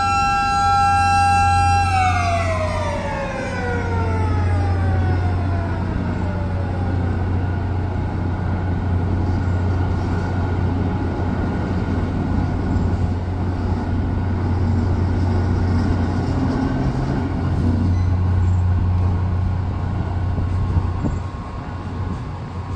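Mechanical siren holding one steady tone, then switched off about two seconds in and winding down in pitch over several seconds, over a steady low hum as the railroad drawbridge span comes down.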